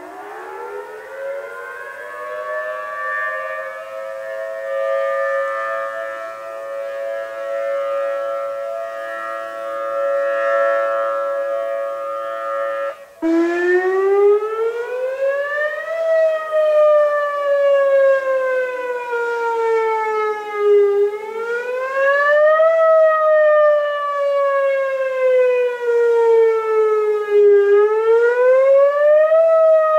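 Outdoor warning sirens sounding in a monthly system test: a tone winds up and holds steady, then about thirteen seconds in it breaks off and gives way to a wail whose pitch slowly rises and falls, each rise and fall taking about six seconds.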